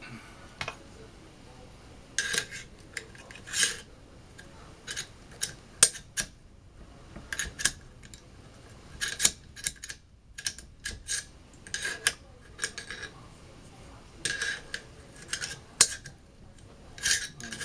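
Irregular metallic clicks and clacks of an AR-15 rifle being broken down and its parts handled.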